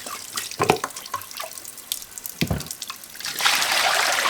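A couple of short knocks as meat bones and a pot are handled, then about three seconds in a kitchen tap opens and water runs loudly into the sink.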